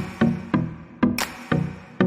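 Background music with a steady beat: sharp percussive hits over pitched notes.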